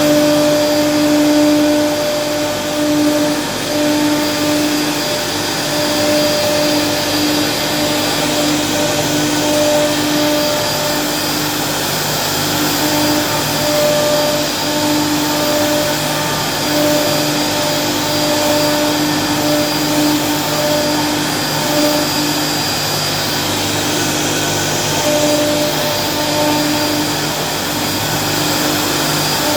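CNC machine running steadily: a continuous motor whine and hiss, with a humming tone that breaks off and comes back every second or so as the machine moves.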